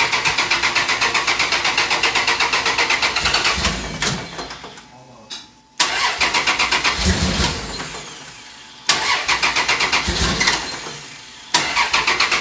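Turbocharged V6 of a first-generation Dodge Dakota being cranked on the starter in repeated tries. Each try is a few seconds of rapid, even pulses that fade away, and new tries start about 6, 9 and 11.5 seconds in. The spark fires in the wrong order, which the owners think leaves only cylinder one and maybe cylinder four firing at the right time.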